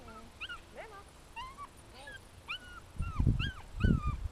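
A dog whining, a run of short high whimpers, each rising and falling in pitch, two or three a second. Two loud, low rushing bursts break in about three and four seconds in.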